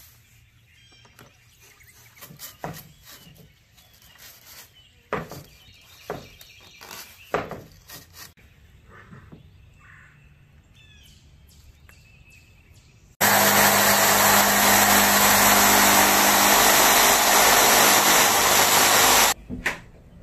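Scattered light knocks and taps from handling foam-board insulation, with birds chirping. About 13 seconds in, a power tool starts and runs loud and steady with a low hum for about six seconds, then cuts off suddenly.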